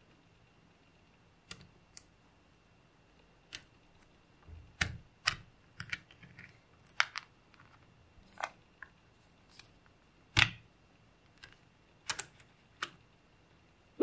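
Small silver magnetic balls clicking as they snap together and are handled, in sharp single clicks at irregular gaps of about a second, the loudest about ten seconds in.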